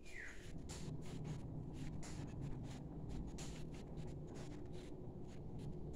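Soft scuffing and rubbing noises, a few a second, from someone walking across a tiled floor with a phone in hand, over a low steady hum. A short falling squeak comes right at the start.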